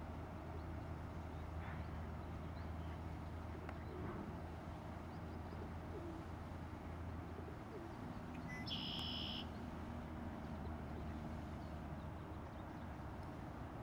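Outdoor ambience: a steady low hum with faint, low bird calls. A brief, high-pitched call comes about eight and a half seconds in.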